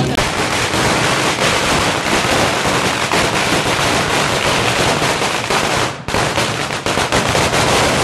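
Firecrackers going off in rapid strings, a dense crackle of sharp bangs, with a short lull about six seconds in.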